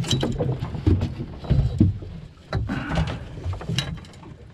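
Irregular knocks, thumps and rustling over a steady low rumble of wind on the microphone, as a freshly caught speckled trout is handled.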